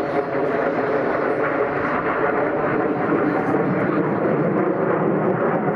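Jet engines of a formation of F/A-18 Hornet fighters flying past, a steady, even rushing noise with no rise or fall.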